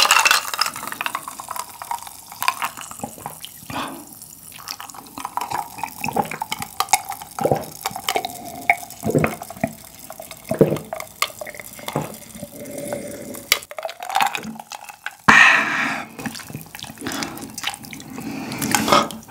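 Close-up mouth sounds of a man drinking water from a glass: repeated gulps and swallows with small wet clicks. About fifteen seconds in, a louder breathy stretch starts suddenly.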